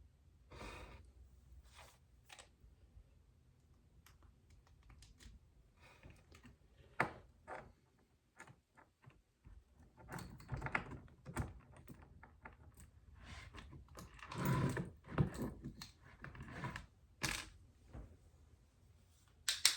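Hands handling small hardware and plastic parts on a workbench: scattered small clicks, taps and rustles at an irregular pace, sparse at first and busier and louder from about halfway through.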